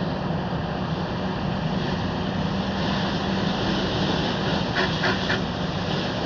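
Fire engine running at a car fire: a steady low engine hum under a continuous rushing noise, with three short higher sounds about five seconds in.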